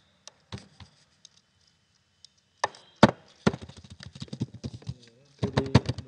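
Computer keyboard keys clacking and mouse buttons clicking in a run of sharp taps: a few scattered strokes at first, then quicker clusters about three seconds in and again near the end.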